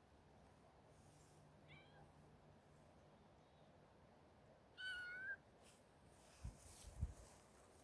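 A kitten mewing: a faint short mew about two seconds in, then a louder, high-pitched mew lasting about half a second. A few soft thumps and rustles follow near the end.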